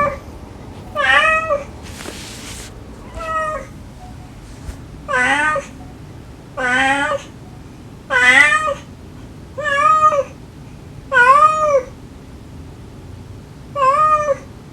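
Kittens meowing, about nine short high meows that rise and fall in pitch, spaced a second or two apart. A brief burst of noise comes about two seconds in.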